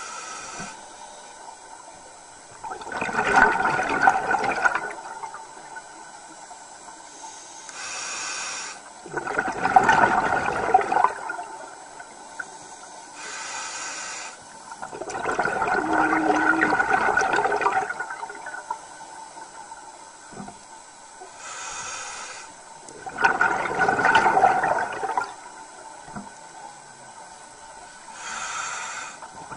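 Scuba diver breathing through a regulator underwater. A short hiss of inhalation is followed by a longer, louder gush of exhaled bubbles. The cycle repeats about every six to seven seconds, four times.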